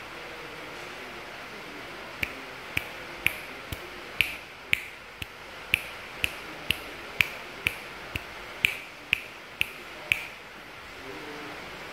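Fingers snapping, a run of about seventeen sharp snaps at roughly two a second, starting about two seconds in and stopping about two seconds before the end.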